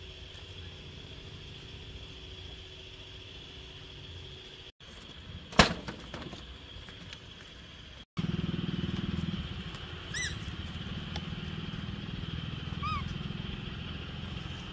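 A low motor rumble with a steady high hum over it. There is a sharp click about five and a half seconds in, and the rumble is louder after a break about eight seconds in. Two short chirps come later.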